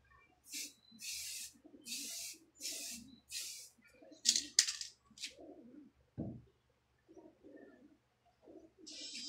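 Aerosol spray-paint can hissing in about eight short bursts as paint goes onto a PVC toy gun, then a dull thump about six seconds in, and a longer spray starting near the end. Low cooing bird calls come and go beneath.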